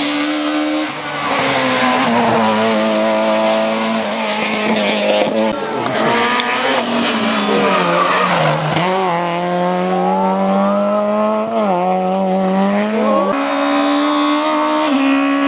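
Rally car engine held at high revs for a long stretch, its pitch dipping and rising again several times, with tyres squealing and skidding.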